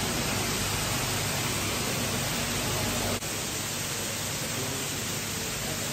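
Steady, even hiss, with a brief drop-out about three seconds in.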